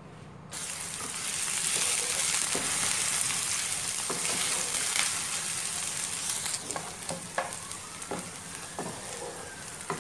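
Chopped onion sizzling in hot cooking oil in a frying pan, being fried toward golden brown; the sizzle starts suddenly about half a second in. From about halfway, a wooden spatula stirs the onion, with scattered scrapes and clicks against the pan.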